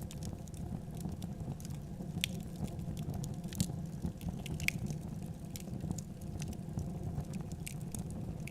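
Wood fire crackling in a fireplace: a steady low rumble of flames with scattered sharp pops and snaps, the loudest about two, three and a half and four and a half seconds in.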